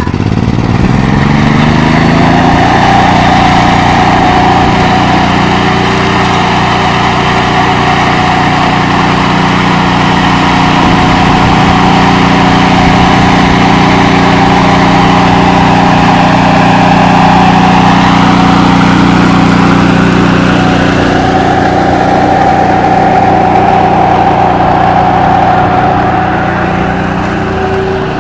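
Ride-on concrete power trowel's engine speeding up over the first couple of seconds, then running steadily as the machine works across the slab.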